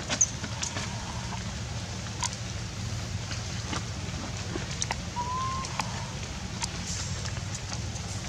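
Wet forest ambience after rain: scattered water drips and ticks over a steady low hum, with one short, slightly rising whistle-like call about five seconds in.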